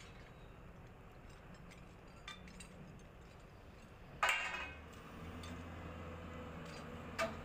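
Excavator loading a dump truck: a loud ringing metal clank about four seconds in and a shorter one near the end, over a low engine hum that becomes steadier after the first clank.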